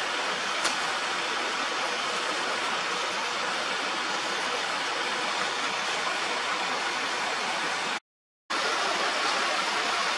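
Steady, even rushing hiss, like flowing water, broken by a short gap of total silence about eight seconds in.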